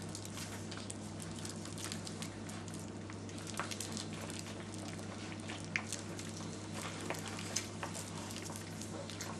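Flat-coated retriever puppy scuffling with a toy, making scattered light clicks and taps over a soft crackle, with a steady low hum underneath.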